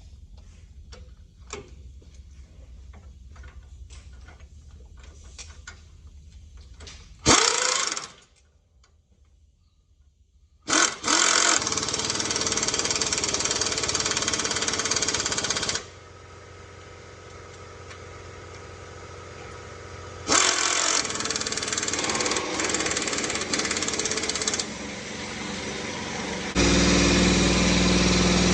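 Pneumatic air tool hammering in bursts: one short burst about seven seconds in, then long runs, with scattered clicks of metal tools before it.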